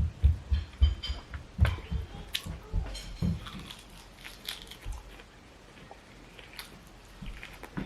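A person chewing and biting food close to the microphone, a quick run of mouth clicks and wet smacks, busiest in the first three seconds and then quieter and sparser.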